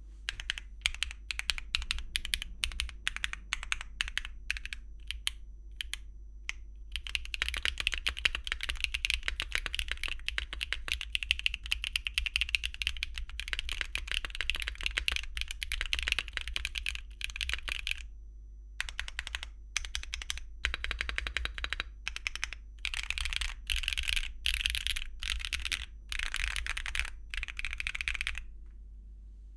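Mechanical keyboard typing on HMX Retro J tactile switches in a Mode Encore keyboard (copper plate, copper bottom case, no foam) with Cherry-profile double-shot ABS keycaps, a higher-pitched, clacky sound. Separate keystrokes at first, then fast continuous typing, then bursts of typing with short pauses, stopping a second or so before the end.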